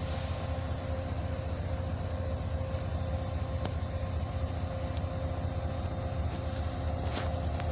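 Norfolk Southern diesel locomotive running steadily: a low engine rumble with a faint hum over it and a few light clicks.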